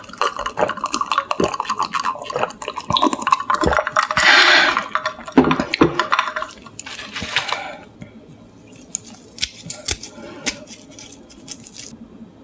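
Close-miked drinking from a glass of water: sips and swallows with small clicks of the glass, then the glass is set down on the table. From about eight seconds in, only faint scattered clicks and handling sounds.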